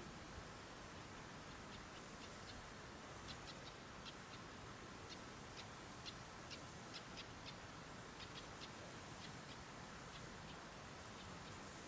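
A steady faint hiss of open-air background with a scattered series of short, high-pitched ticks, starting about two seconds in and thinning out near the end.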